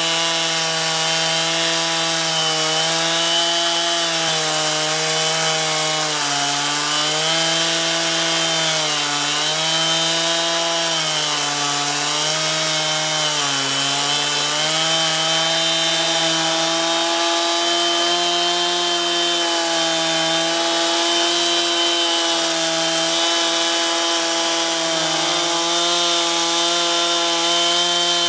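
A chainsaw mounted on a Logosol F2+ chainsaw mill runs at full throttle, ripping a log lengthwise. For about the first half the engine pitch repeatedly dips and recovers as the chain bogs under load, then it holds steadier to the end.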